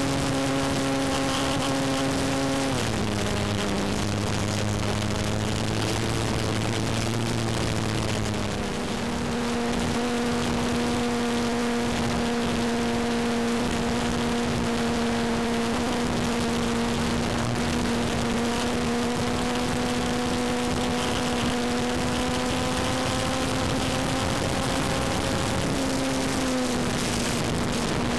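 Electric RC model Tucano's motor and propeller whining steadily, heard from on board the plane over heavy wind rush. The pitch drops about three seconds in and rises back near nine seconds.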